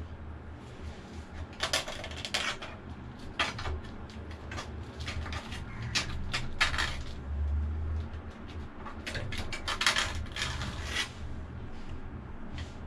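Irregular metal scraping strokes and light clinks: a steel rule scraping thick caked oil paste off the rear of a Kubota V2003 engine's housing. The strokes come in short runs, busiest around the middle and again in a cluster near the end.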